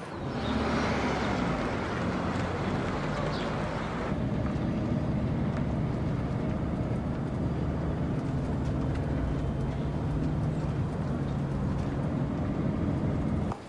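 A vehicle engine running steadily, a continuous low hum with a noisy rush over it.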